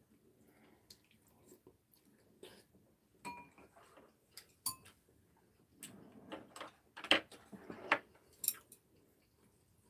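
Quiet eating at the table: chopsticks and spoons clinking against ceramic bowls, with soft chewing. A handful of sharp clinks are scattered through, the loudest in the second half.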